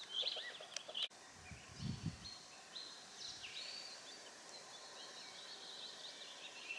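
Songbirds singing faintly: a short warbling phrase at the start, then a series of high, buzzy trilled notes, with a brief low rumble about two seconds in.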